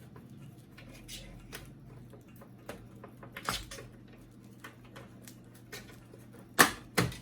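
Plastic clicks and taps from the HP LaserJet P1102 printer's side cover being worked off its snap latches, with two sharp snaps in quick succession near the end.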